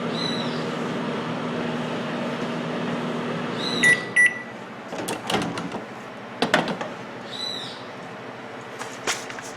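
GE Spacemaker microwave oven running with a steady electrical hum, heating again with its replaced high-voltage capacitor. About four seconds in the hum stops with two short beeps, followed by a few sharp clicks and knocks.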